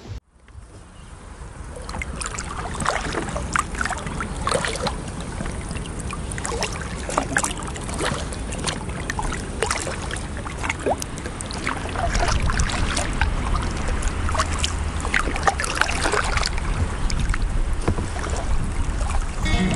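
Kayak paddle strokes splashing and dripping in calm river water, irregular and close. A low wind rumble on the microphone runs under them and grows stronger past the halfway point.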